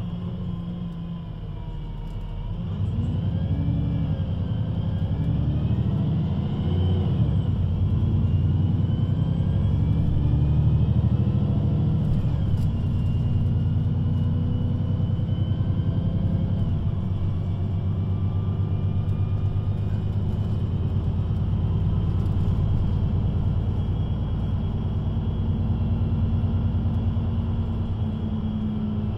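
VDL Citea LLE 120 city bus driving: its diesel engine and Voith automatic gearbox running. The engine note climbs and shifts as the bus speeds up about three seconds in, then holds a steady drone.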